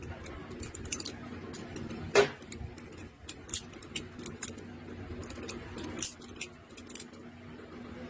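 A rusty old balisong (butterfly knife) being flipped by hand, its metal handles and blade clacking and rattling in quick, irregular clicks, with one louder clack about two seconds in.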